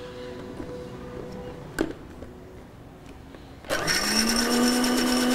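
Electric mixer grinder with a stainless steel jar switched on about three and a half seconds in, its motor spinning up in a quick rising whine to a steady high-pitched run as it grinds grated coconut with a little water. A single click comes a couple of seconds before it starts.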